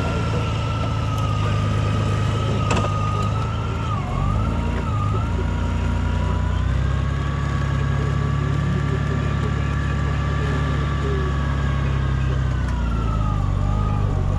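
Honda Gold Wing motorcycle's flat-six engine running as the bike rolls off at low speed, with a high steady whine over the engine. The whine dips briefly about four seconds in and again near the end.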